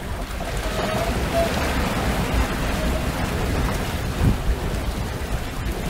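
Steady wind buffeting the microphone, with a heavy low rumble, and water rushing past a sailboat's hull as it sails through choppy water.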